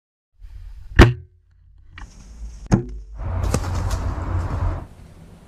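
Bow shot: a sharp crack about a second in, followed by a few lighter knocks and nearly two seconds of rustling and crashing in dry leaves, over a low rumble on the microphone.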